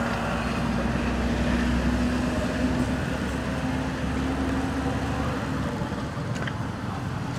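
Steady low rumble of a motor vehicle engine running, with a constant hum that drops out about six seconds in.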